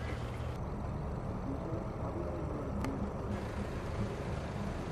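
Steady low rumble of road traffic, with a single sharp click about three seconds in.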